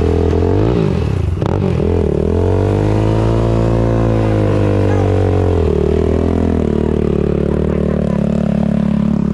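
Off-road vehicle engine running close by, revving: its pitch dips twice in the first two seconds, climbs and holds high, then drops back about six seconds in and runs steady.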